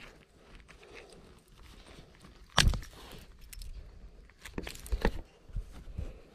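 Close knocks and rustles of a fishing rod and baitcasting reel being handled, with one sharp knock about two and a half seconds in and a few more near the end.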